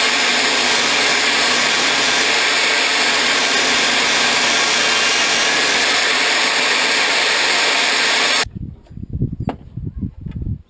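A power tool runs steadily with an even, hissing noise, then cuts off abruptly about eight seconds in. Irregular low rumbles and a single sharp click follow.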